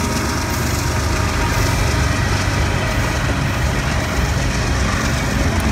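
CSX GE diesel locomotives running in mid-train position pass close by, their engine rumble giving way to the steady rolling rumble of covered hopper cars on the rails.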